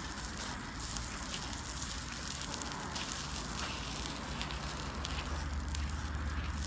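Burning paper crackling with many small, irregular snaps over a low, steady hum.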